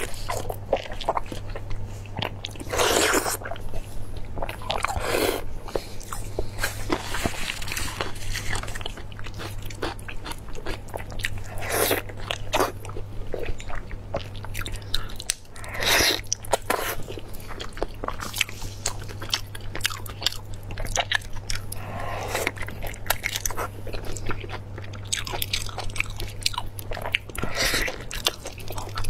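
Close-miked sounds of a person eating saucy braised meat with her mouth and gloved hands: wet biting, tearing and chewing with many small clicks and smacks. Louder noisy bursts come every few seconds, over a steady low hum.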